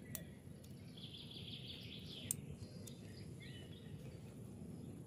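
Quiet outdoor background noise with faint bird chirps now and then, and a single faint click a little over two seconds in.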